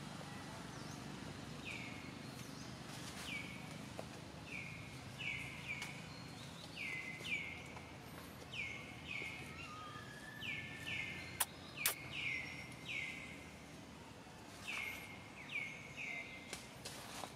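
A bird calling over and over, short chirps that each fall in pitch, about one or two a second and often in pairs, over steady outdoor background noise. Two sharp clicks come a little past the middle.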